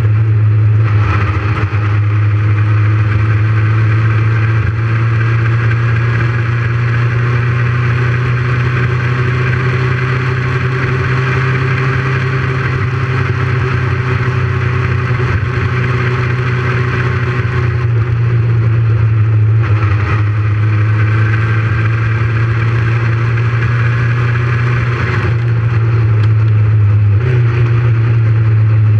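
Motorcycle engine running steadily under way, its pitch drifting slowly up and down with speed and shifting briefly near the end.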